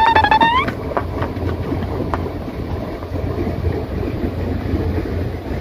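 Wind buffeting the microphone, a steady low rumble throughout. A short high-pitched cry opens it, rising in pitch at its end.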